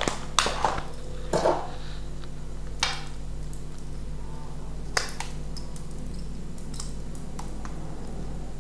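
A few light clinks and clicks of small metal tools and parts being handled, among them an Allen key picked up off the table, over a steady low electrical hum. The clicks come mostly in the first three seconds, with one more about five seconds in.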